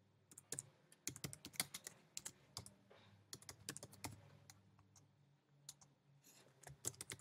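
Faint typing on a computer keyboard, a quick irregular run of keystrokes for about four seconds, then a pause and a few more taps near the end. A faint steady low hum sits underneath.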